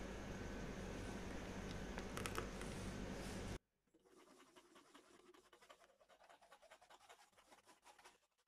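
A spoon scraping and pressing blended mango pulp through a stainless-steel mesh strainer, a faint irregular scratching. Before it there is a steady background hiss and hum with a couple of light clicks, which cuts off abruptly about three and a half seconds in.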